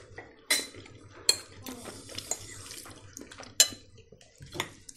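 Cutlery clinking against plates and bowls at a meal: a handful of sharp clinks, the loudest three about half a second, a second and a quarter, and three and a half seconds in.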